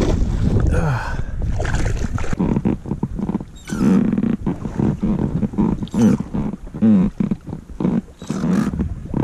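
Oars of an inflatable boat being rowed: a low creaking groan with each stroke, about once a second, with the splash of the blades in the water.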